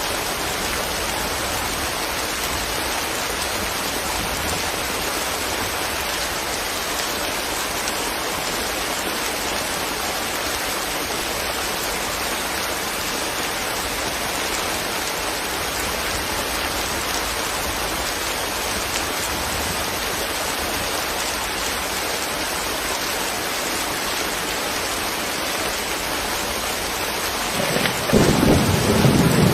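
Steady rain falling, an even hiss of raindrops, with a louder crackling rumble of thunder breaking in near the end.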